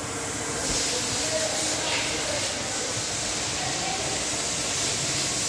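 Steady hissing workshop noise with faint voices in the background, swelling about a second in.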